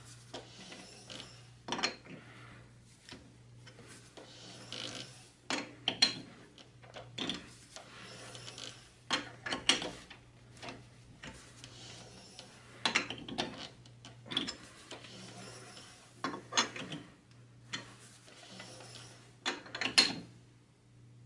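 Four-jaw lathe chuck being adjusted by hand with a chuck key, the jaws tightened and loosened and the chuck turned between checks, giving scattered metallic clicks and clunks every couple of seconds over a faint steady hum. This is the work being dialed in to center.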